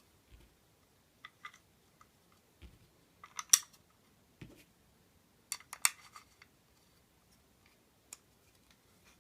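Butt pad being clipped back onto a Magpul MOE CTR polymer buttstock: scattered plastic clicks and snaps, loudest in two short clusters, a little past the middle and again about two-thirds through, as the pad's tabs seat.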